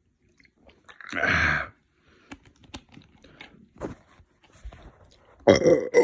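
Mouth noises of someone drinking soda: a short loud noisy burst about a second in, then small wet clicks of gulping and swallowing. Near the end a loud, long, pitched burp with a falling pitch begins.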